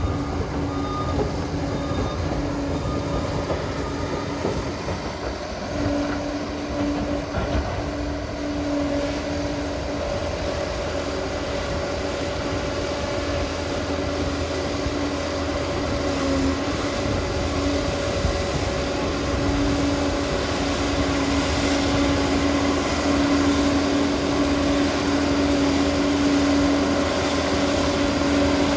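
Liebherr PR 746 crawler dozer running, its diesel engine giving a steady rumble with a whine that comes and goes and grows a little louder near the end.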